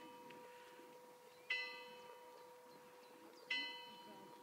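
Faint church bell tolling slowly, two strokes about two seconds apart. Each stroke rings on and dies away over a steady hum.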